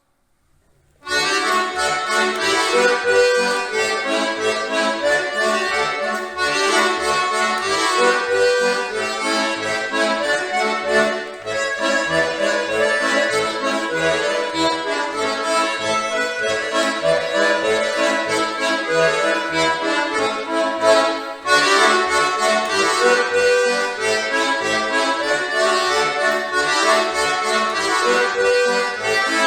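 Accordion playing an instrumental tune that starts about a second in, with a regular beat of separate bass notes under the melody.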